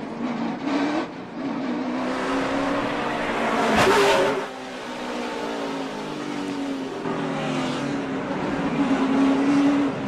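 NASCAR stock car's V8 engine heard from an onboard camera, its pitch rising and falling as the driver works the throttle through traffic and wrecks. A loud burst of noise about four seconds in stands out over the engine.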